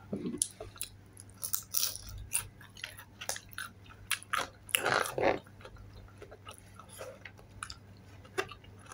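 Chewing a fried chili dynamite roll: irregular crunches and mouth clicks, with one louder crunch about five seconds in.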